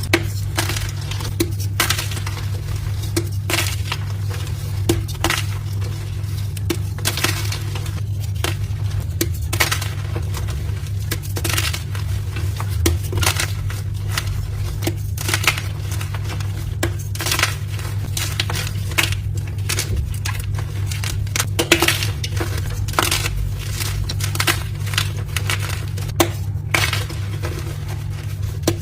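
Dyed gym chalk blocks being crushed and crumbled, a run of crisp, irregular crunches and crackles, over a steady low hum.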